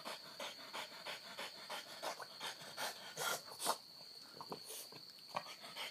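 French bulldog panting quickly, about three to four short breaths a second.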